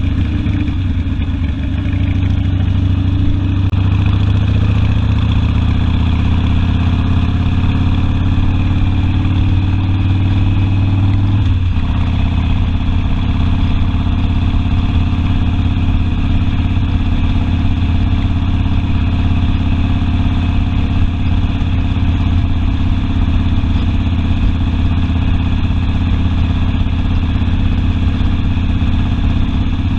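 Harley-Davidson Sportster's V-twin engine running under way. Its note climbs slowly, drops suddenly about twelve seconds in, as on an upshift, then holds steady.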